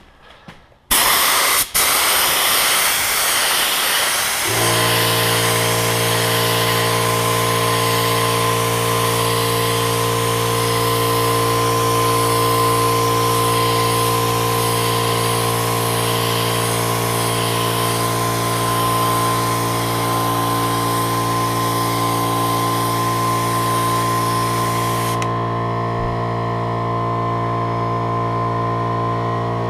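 Compressed-air paint spray gun with a siphon cup hissing as it sprays paint. About four seconds in, an air compressor starts and runs with a steady hum. Near the end the spray hiss stops while the compressor keeps running.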